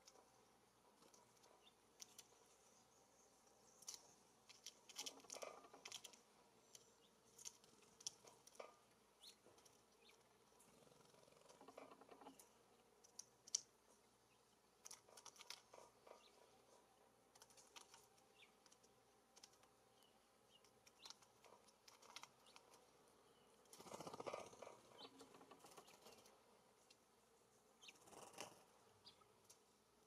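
Faint, scattered ticks and taps, some bunched into short flurries: a California scrub-jay pecking and clambering at a seed cylinder in a wire-mesh feeder cage.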